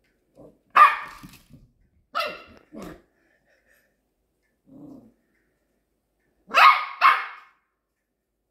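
Small puppy barking in short, sharp barks: one about a second in, two more a second or so later, then a loud pair near the end.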